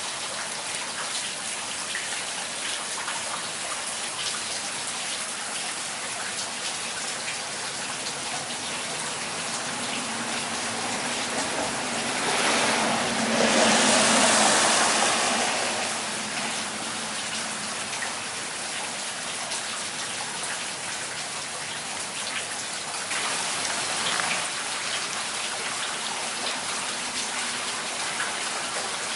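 Steady rain from a summer thundershower falling and pattering on surfaces, with a louder rushing swell that rises and fades over a few seconds about halfway through, and a smaller one later.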